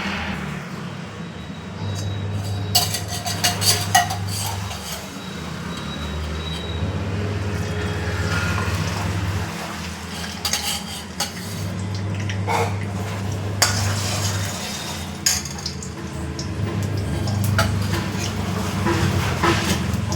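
Metal pots and kitchen utensils clinking and knocking now and then over a steady low hum.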